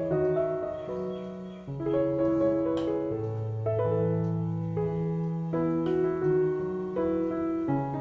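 Background music: a soft piano playing slow, held chords over sustained bass notes.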